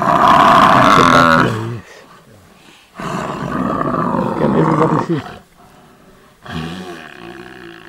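Deep animal calls at a lion kill on a buffalo bull being suffocated: three loud, drawn-out calls, each sliding down in pitch, the first the loudest.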